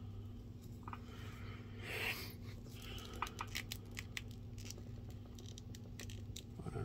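Light plastic clicks and rustling as the parts of a Mythic Legions action figure are handled, with a brief rustle about two seconds in, over a steady low hum.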